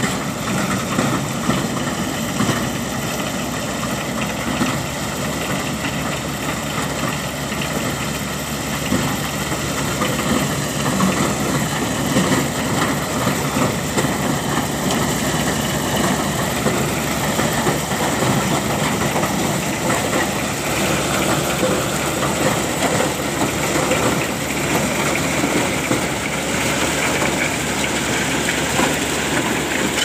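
Gunung Biru corn combine harvester at work in standing corn: its engine running steadily under the clatter of the corn header as it takes in the stalks.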